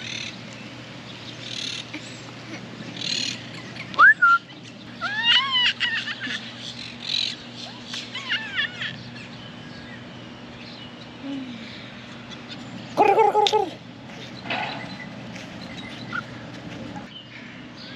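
Scattered bird chirps in short gliding calls over a steady low hum, with a young child's brief voiced call about two-thirds of the way through.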